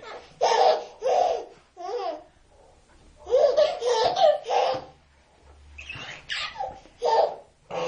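A baby laughing in repeated short bursts with brief pauses between them, the laughs coming thickest a little past the middle.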